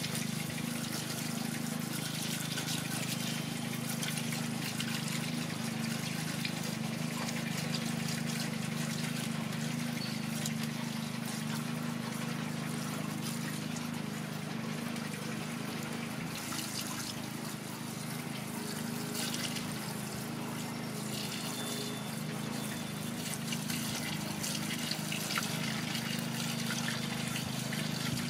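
Diesel fuel pouring steadily from a plastic jug through a funnel into a Massey Ferguson 255 tractor's fuel tank, a continuous trickle with no break. A steady low hum runs underneath.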